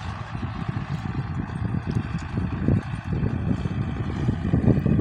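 A tractor working a ploughed field at a distance, its engine heard as a low uneven rumble with irregular jolts.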